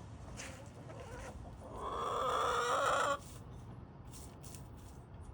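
Backyard chickens: one loud drawn-out call lasting about a second and a half that cuts off abruptly, with fainter clucking around it.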